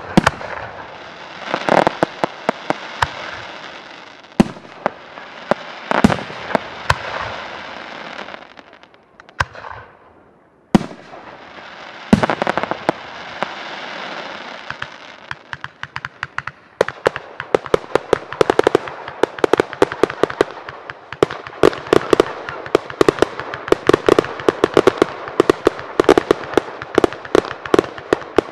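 Aerial firework shells bursting with sharp bangs, each followed by a long crackling fizz from the stars. From about halfway on, a rapid barrage of many pops and bangs, several a second.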